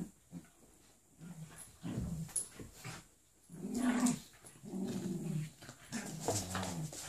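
A golden retriever puppy and a Jack Russell cross growling at each other in play as they wrestle, in several growly bursts, the loudest about four seconds in.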